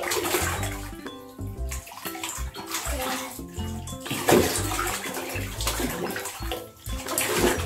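A child's hands sloshing and splashing through a bathtub of Gelli Baff bath jelly, with background music playing over it.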